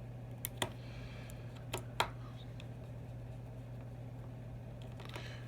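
A few small sharp clicks of repair tools and a tiny screw against an iPhone 6's frame as the screw is put in: two about half a second in and two more near two seconds in. A low steady hum runs underneath.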